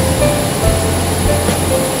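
Background music: a simple melody of held notes stepping up and down over a bass line.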